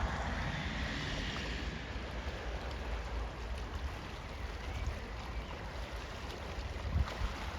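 Steady rushing of the ephemeral Sopot waterfall, with wind rumbling on the microphone and a few stronger gusts near the end.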